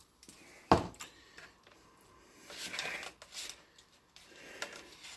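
Handling noises on a plastic food tray: one sharp knock under a second in, then scattered light scrapes and clicks of a utensil as salt is worked into the corn.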